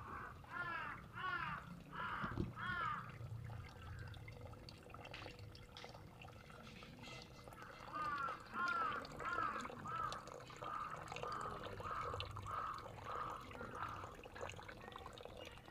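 A crow cawing: about four harsh caws in the first three seconds, then a longer run of about ten caws in a steady rhythm later on.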